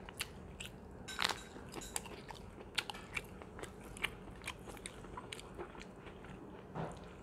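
Close-up eating sounds: a crunching bite into a crisp raw green vegetable about a second in, then chewing with many sharp, crisp clicks.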